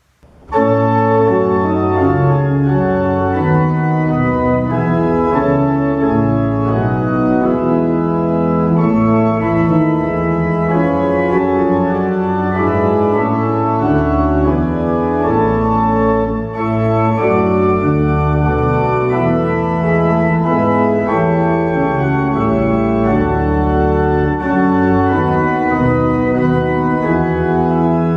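Organ music of held chords moving steadily from one to the next, starting suddenly about half a second in.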